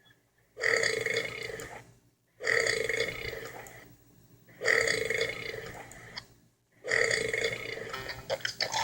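A person burping: four long, loud belches in a row, each starting suddenly and trailing off, about two seconds apart.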